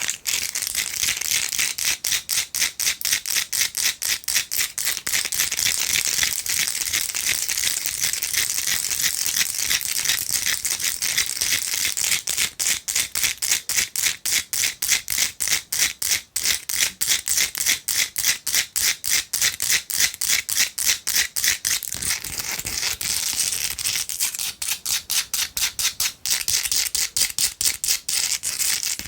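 Long fingernails tapping and scratching fast on a Himalayan salt rock: a dense run of sharp clicks, several a second, with a dry scratchy hiss between them.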